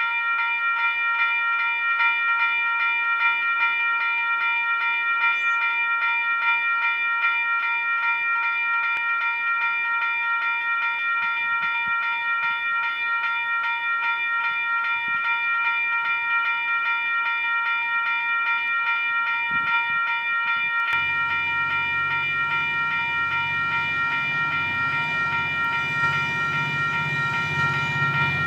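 Level crossing warning bell ringing steadily and rapidly. About three-quarters of the way through, the low rumble of the approaching train joins it and grows.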